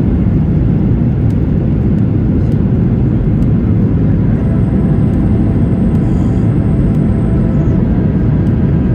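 Steady low rumble of a jet airliner, with a faint high-pitched whine for about three seconds in the middle.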